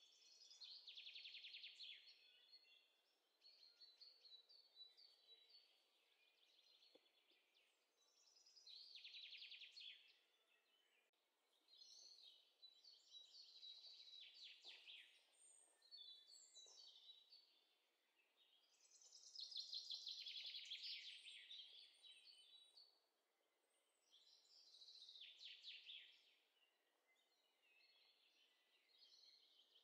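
Faint birdsong, likely a recorded ambience track: high trilled songs of a second or two each, recurring every few seconds, with thin chirps between them.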